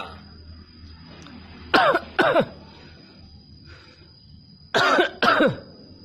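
Hill myna giving two pairs of short, harsh cough-like calls, each falling in pitch, one pair about two seconds in and the other near the end.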